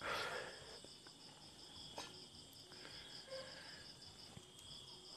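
Crickets chirping faintly in an even, fast pulsing trill. A brief soft noise at the very start and a few faint clicks.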